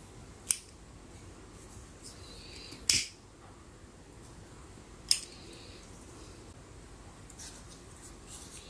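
Three sharp clicks about two and a half seconds apart. The middle one is the loudest and comes after a short rustle. A few faint ticks follow near the end, as of small craft materials being cut or handled.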